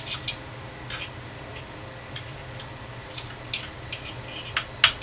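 Irregular light clicks and taps of a small metal utensil against a metal muffin pan as seasoned chicken thighs are pressed and shaped into the cups, the sharpest click near the end. A steady low hum runs underneath.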